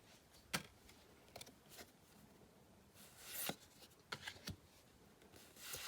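Pokémon trading cards being handled and flipped through: faint scattered taps and clicks, with a couple of short swishes of card sliding over card.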